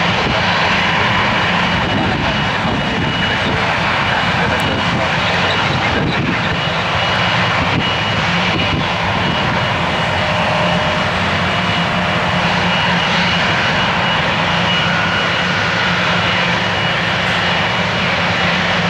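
Steady, loud aircraft engine noise from a C-130H Hercules's four turboprops as it climbs away after takeoff, mixed with the engines of a twin-engine jet airliner taxiing close by. A thin, steady high whine runs through it.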